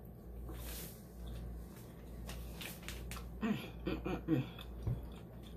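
Eating at the table: soft wet clicks and smacks of chewing and of fingers handling seafood, over a steady low hum. About three and a half seconds in, a brief wavering murmur of her voice.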